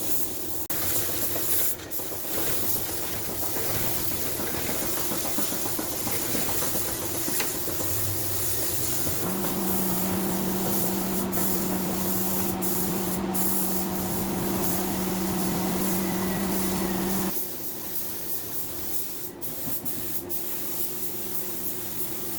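Air-powered paint spray gun hissing steadily as base coat and clear coat are sprayed onto car body panels. A steady low hum joins it for several seconds in the middle and cuts off suddenly.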